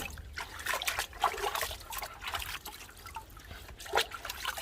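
Water splashing and trickling in a tub as a furry pet is bathed and held in the water, in uneven small splashes with a sharper splash about four seconds in.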